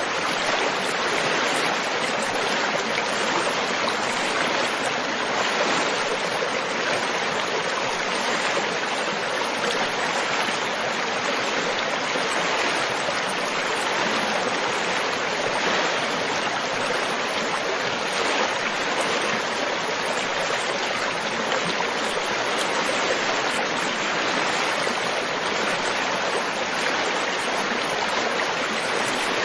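Water in a flowing stream rushing steadily, an even, unbroken hiss with no distinct splashes or changes.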